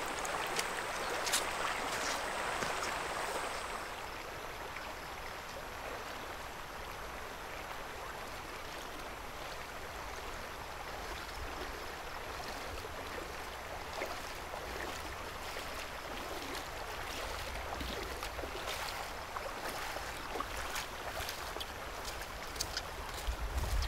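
Shallow stream running, louder for the first few seconds while a plastic basket of fruit is swished in the water, then steady. A few footsteps near the end.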